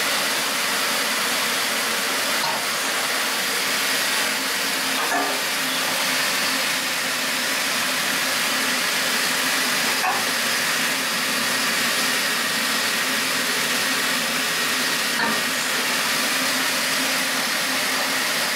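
Steady loud hiss from an Aquamaster RI-5400 rotary indexing parts washer running its cleaning cycle on aluminium brake master cylinders, with faint clicks every few seconds.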